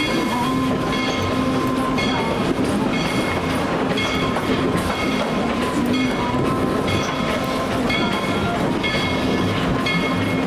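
Tweetsie Railroad train cars rolling along the track, with wheels clicking over the rail joints in a steady rhythm under a continuous running rumble.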